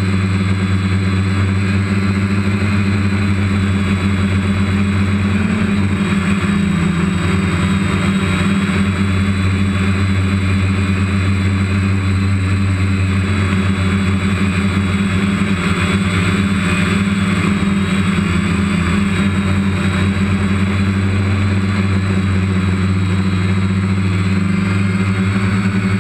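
Multirotor drone's electric motors and propellers humming steadily, with slight shifts in pitch as it flies.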